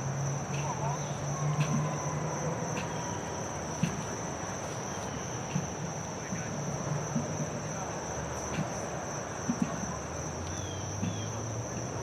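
Steady, unbroken high-pitched insect trill, like field crickets, over a low steady hum, with a few faint clicks scattered through.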